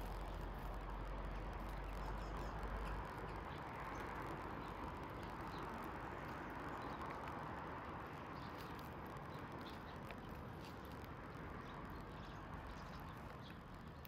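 Outdoor rushing noise that swells over several seconds and slowly fades, with a deep rumble that stops about three seconds in and faint short chirps of small birds at a feeder.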